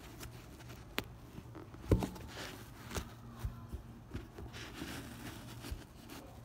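Handling noise from a sneaker and the recording phone being held close: scattered light taps and scrapes, the loudest a knock about two seconds in.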